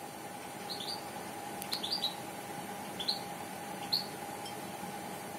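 Short, high bird chirps, some single and some in quick runs of two or three, over a steady faint hum.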